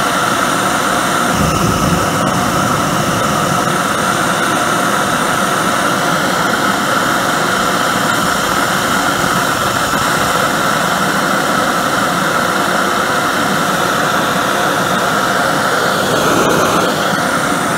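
Propane forge burner running steadily on a high-flow waste-oil nozzle: a continuous loud rush of burning gas with a steady tone running through it.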